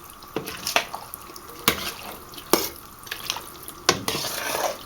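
Spoon knocking and scraping against cookware as canned soup is scooped and stirred into a pot of cooked noodles: several sharp knocks at uneven intervals, then a longer scrape near the end.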